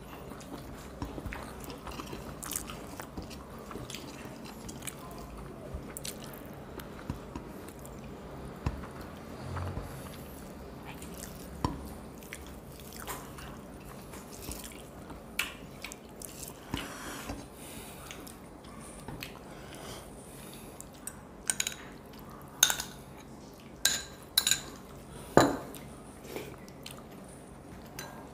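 Eating by hand from plates: quiet chewing and fingers mixing rice on the plates, with scattered light clinks of a spoon and small bowls against the plates, more frequent near the end.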